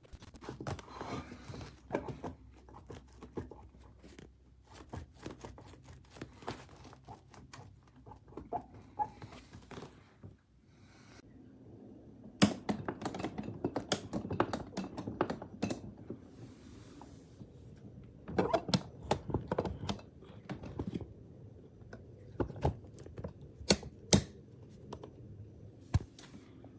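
Irregular sharp clicks, taps and knocks of hard objects being handled, growing busier and louder about halfway through.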